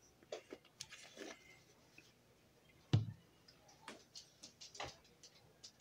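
Scattered light clicks and taps of spice containers and kitchen items being handled, with one sharper knock about three seconds in.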